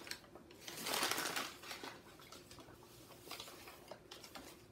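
Paper bag rustling and crinkling as a hand rummages inside it and draws out a slip, loudest about a second in, then fainter rustles.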